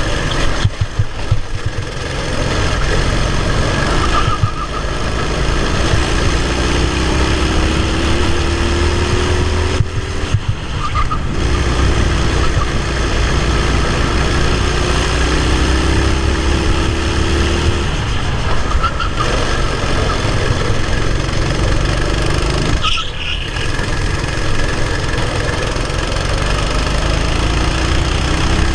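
Racing kart engine running hard, heard from on board, its pitch climbing twice as it accelerates along the straights. It dips briefly about ten seconds in and again about twenty-three seconds in as the throttle comes off for corners.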